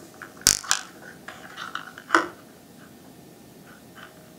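Pliers snipping insulated electrical wires to length: two sharp snips about a second and a half apart, with small clicks of wire and plastic handling between.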